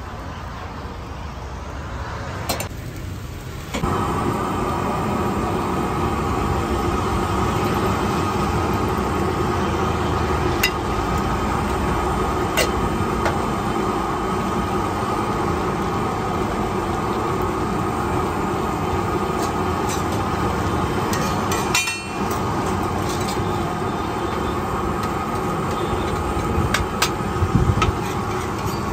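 An egg frying on a large flat griddle (tawa): a steady sizzle that starts suddenly about four seconds in and holds on evenly. A few sharp clicks of a metal spatula come now and then, several close together near the end.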